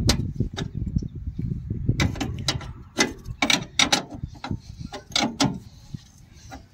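Steel spanners clicking and clinking against the bolts and cast housing of a combine harvester's cutter drive as its mounting bolts are tightened: a string of sharp, irregular clicks over a low rumble in the first two seconds.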